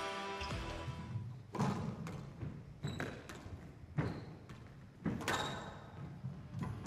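A squash rally: the ball is struck by rackets and hits the walls in a series of sharp, echoing smacks about every half second to a second, with a few short squeaks of shoes on the court floor. Background music fades out in the first second.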